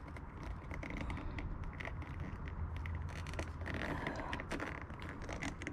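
Faint scattered clicks and scraping as hands handle a scooter's ignition-switch wiring and connectors, over a low steady hum.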